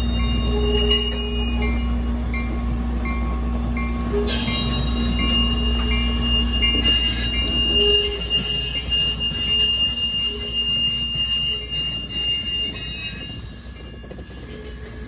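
Steam-hauled passenger train rolling slowly past, with a low rumble throughout. A long high-pitched wheel squeal sets in about four seconds in and stops shortly before the end.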